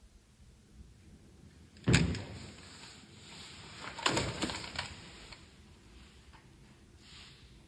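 A sudden loud bang about two seconds in, then a second bang with a quick run of knocks about two seconds later. A high, thin steady tone sounds along with them and returns briefly near the end.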